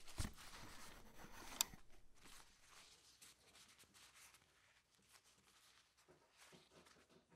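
Quiet handling noises: a low thump at the start, a sharp click about a second and a half in, then faint scattered rustles and taps that thin out.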